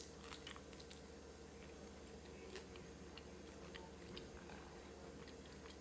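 Faint chewing: soft mouth clicks of someone eating a bite of vegetable pancake dipped in sauce.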